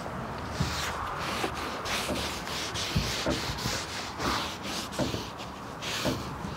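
Cloth wiping over bare sanded wood in quick back-and-forth strokes, about two a second, clearing away the sanding dust before the wood is oiled.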